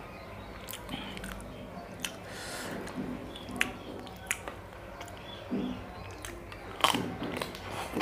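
Close-up eating sounds of chocolate-coated ice cream bars: wet mouth noises and chewing with scattered sharp clicks, and a louder bite near the end.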